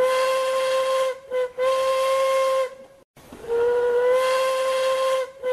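Steam locomotive whistle blowing long, short, long blasts over a hiss of steam, each long blast sliding up slightly in pitch as it opens. After a short gap the same pattern starts again about three and a half seconds in.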